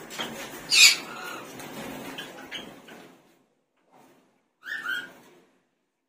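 Lovebirds calling: a sharp chirp about a second in, a couple of faint chirps after it, and a louder squawk near the end.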